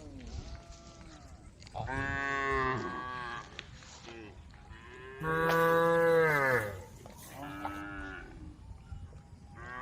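Cows mooing: four separate moos, the longest and loudest about five seconds in, falling in pitch as it ends.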